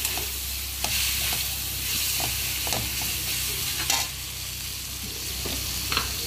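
Pieces of loach sizzling as they stir-fry in oil in a metal wok, with a metal spatula scraping and knocking against the pan now and then.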